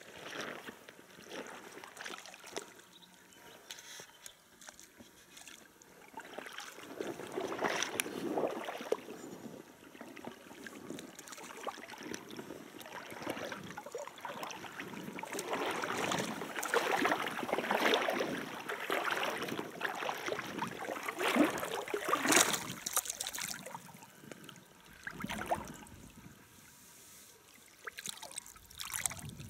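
River water splashing as a hooked fish thrashes at the surface while it is drawn in on a fly line, in irregular splashes with no steady rhythm. Near the end, a hand splashes in the shallow water around the fish.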